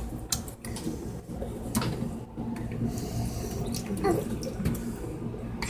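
Drinking fountain water running and splashing, with a few sharp clicks.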